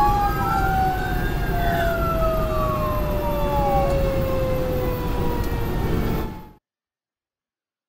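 Fire engine siren wailing, its pitch gliding up and then slowly down, heard from inside the cab over the steady low rumble of the engine and road. The sound cuts off abruptly about six and a half seconds in.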